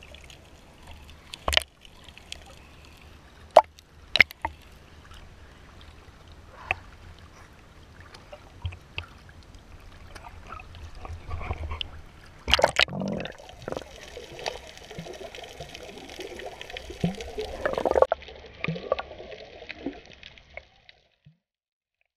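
Sea water around an action camera during snorkeling: muffled sloshing and gurgling with a few sharp knocks. About halfway through it turns brighter and louder, with splashing at the surface, and it cuts off shortly before the end.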